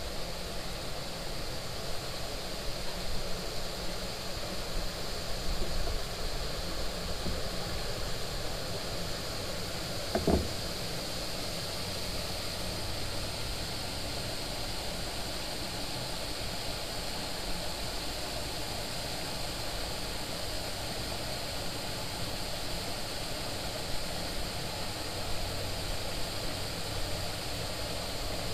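Steady outdoor hiss with no distinct source, and one short knock a little over ten seconds in.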